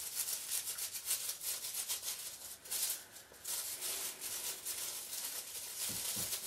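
A hand rummaging through folded paper name slips inside a knit hat: quick, scratchy rustling.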